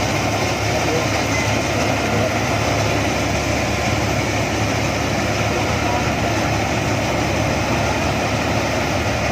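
Combine harvester engine running steadily at idle, an even low hum without revving.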